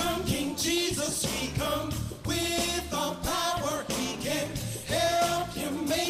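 Gospel song: a man's voice singing into a microphone over instrumental accompaniment with a steady beat.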